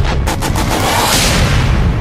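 Title-graphic sound effect: a quick run of sharp booming hits, then a swelling whoosh that fades, over a deep rumble.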